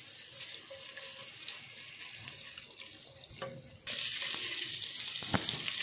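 Ginger-garlic paste sizzling in hot ghee in a non-stick wok as it is stirred with a silicone spatula. The sizzle is a steady hiss that gets suddenly louder about four seconds in, with a couple of light knocks from the spatula.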